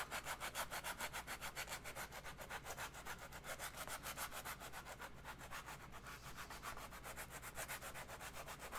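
Hand-held abrasive being scrubbed rapidly back and forth against the inside of a foam costume piece, a steady scratchy rubbing of about six strokes a second. The abrasive is too fine to cut the foam much, in the maker's own judgement.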